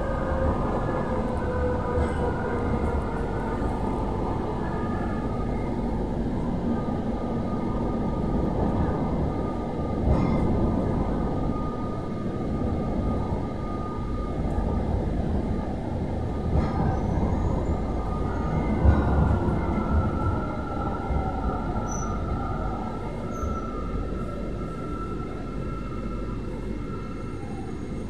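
Metro train running in a tunnel, heard from inside the carriage: a steady rumble of wheels on rail with a motor whine that falls in pitch over the first few seconds. In the second half a thin steady squeal joins, and the running eases toward the end as the train slows into a station.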